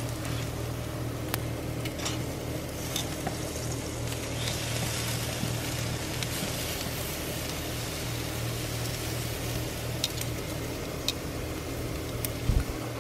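Beef steaks and ribs sizzling on a charcoal kamado grill, a steady hiss with a few sharp clicks of metal tongs. A low bump near the end.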